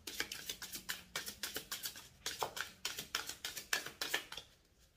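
A deck of oracle cards being hand-shuffled: a quick, uneven run of light card clicks and slaps, several a second, stopping near the end.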